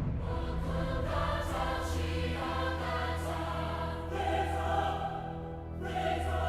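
Music with a choir singing long held notes over a low sustained bass.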